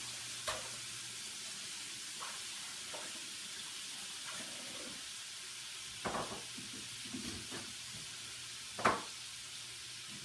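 Shrimp frying in butter in a small skillet: a steady sizzle with a few sharp clicks, the loudest about nine seconds in.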